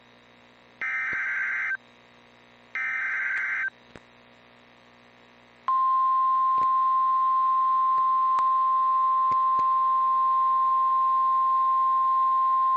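NOAA Weather Radio / EAS alert sequence: two raspy bursts of SAME digital header data, about a second each and a second apart. After a short pause a single steady 1050 Hz warning alarm tone comes in, about six seconds in. The tone signals that a new warning message is about to be read.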